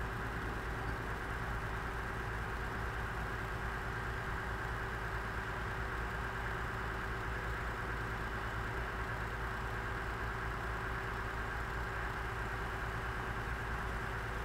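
Heavy construction equipment's engine idling steadily, an even drone with a low hum that does not change.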